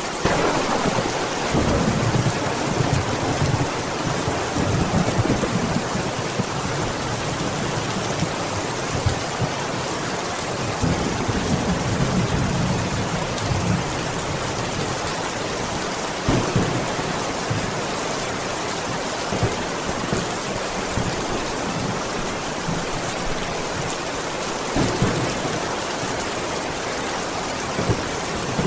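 Heavy rain falling steadily with thunder: a low rolling rumble swells up right at the start and again around the middle, over the constant hiss of the rain.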